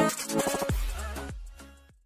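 Electronic background music with drum hits, fading out and ending just before the close.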